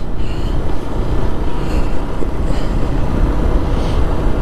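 Motorcycle being ridden along a road: steady wind rush over the bike-mounted microphone mixed with the engine running.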